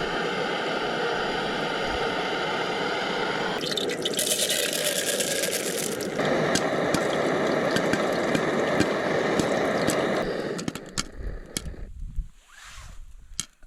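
Popcorn cooking in a pan over a fire: a steady sizzle, with a harsher rattling stretch a few seconds in. The sizzle fades near the end, leaving scattered sharp pops and clicks.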